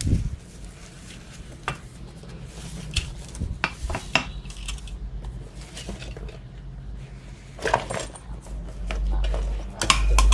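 Metal parts clinking and knocking against each other as they are handled: a series of separate sharp clicks, with a low rumble building near the end.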